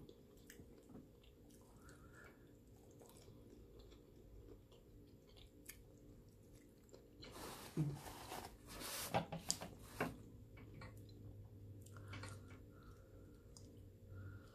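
A person chewing food close to the microphone: soft wet chewing and mouth clicks, with a few louder crackly bursts about halfway through.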